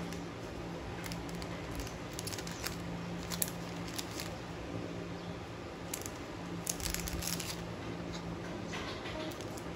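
Clear plastic bag crinkling and rustling in short irregular bursts as paper stickers are handled and slid into it, over a steady low hum.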